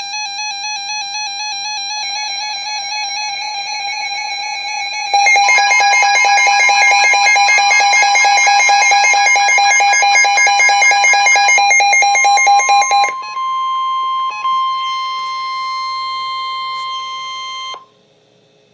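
Emergency Alert System alert tones: a warbling electronic tone for about five seconds, then a louder, rapidly pulsing alarm of several tones until about thirteen seconds in. A steady single tone follows and cuts off suddenly near the end.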